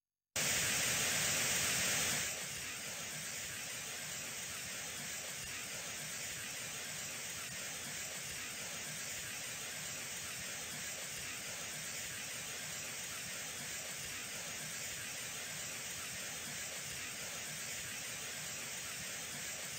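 Television static sound effect: a steady hiss of white noise. It starts loud and bright for about the first two seconds, then settles a little quieter and holds steady.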